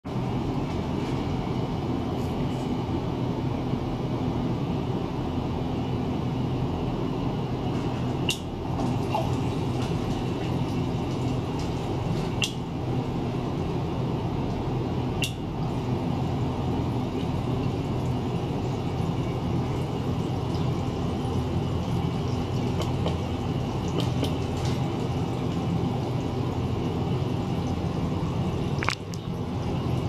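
Small magnet-drive pump running steadily, circulating water through silicone tubing into a glass beaker: a continuous motor hum under the rush of flowing water, with a few sharp clicks along the way.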